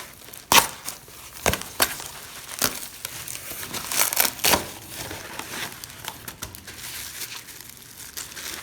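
Packing wrap being pulled off by hand: irregular crinkling and crackling with tearing, loudest about half a second in and again around four seconds in.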